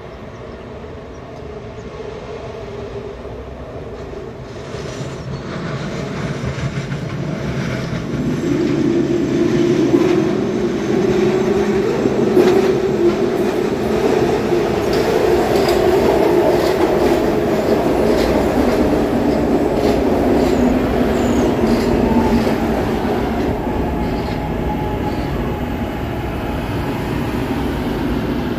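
SEPTA Market-Frankford Line elevated train approaching and pulling into the station on the steel el structure. It grows louder over the first eight to ten seconds, then runs steadily with wheels clattering over the rail joints, easing slightly near the end as it slows at the platform.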